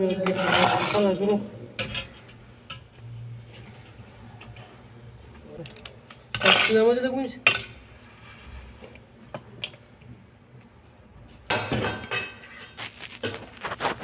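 Steel trowel scraping and tapping on wet mortar and hollow clay bricks: scattered metallic clinks and scrapes, with a longer run of scraping near the end.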